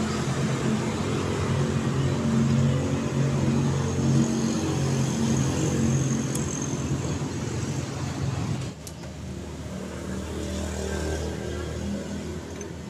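A motor vehicle engine running steadily, a fairly loud drone that drops abruptly about nine seconds in and carries on lower and quieter.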